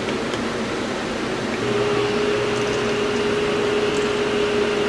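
Electric can opener motor running with a steady hum, cutting open a tin can; the hum starts about two seconds in and stops near the end. A steady fan-like noise runs underneath.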